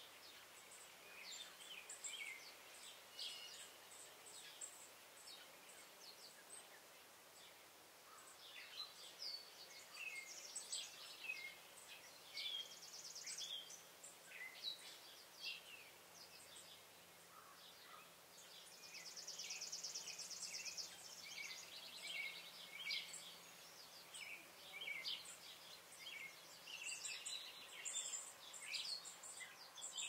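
Several songbirds singing and calling, a scatter of short high chirps and whistles, with a fast trill twice, once about a third of the way in and again, longer, about two-thirds through.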